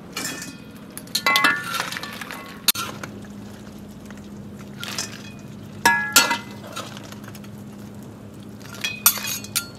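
A metal spatula clinks and scrapes against a wok and a stainless-steel colander as cooked shrimp are scooped out and dropped in. There are several sharp metallic clinks that ring briefly, and a steady low hum runs underneath.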